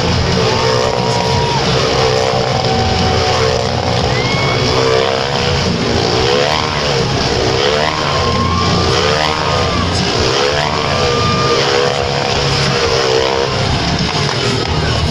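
Small motorcycle engine revving hard and continuously as it circles inside a steel-mesh Globe of Death, its pitch rising and falling in waves every second or two.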